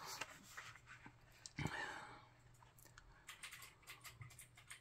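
Pages of a paperback book being handled and turned: faint paper rustles and small clicks, with one louder swish about one and a half seconds in.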